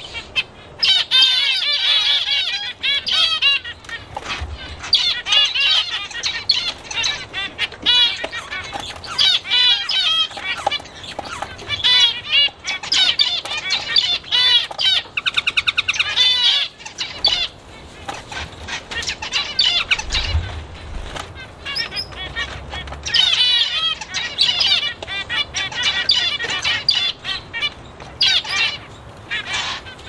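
Mixed small aviary birds chirping and calling over one another in rapid, overlapping chirps, with a short buzzy trill about halfway through.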